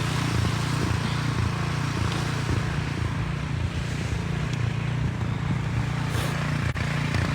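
Engine running steadily: a constant low drone with a hiss over it.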